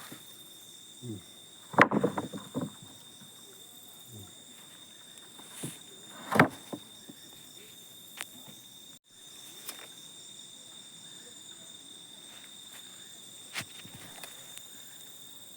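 Steady high-pitched insect chirring over a quiet outdoor background, with a cluster of knocks about two seconds in, one sharp knock around six seconds, and a few lighter clicks.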